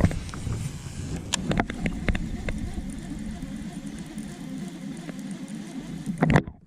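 Scattered sharp clicks and knocks over a steady low rumbling noise, with a louder thump near the end.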